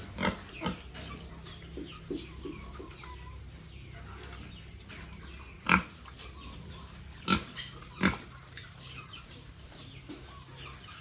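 Pigs grunting and squealing, with a few sharp, loud calls (the loudest near six seconds, two more around seven and eight seconds) among many fainter short ones, over a steady low hum.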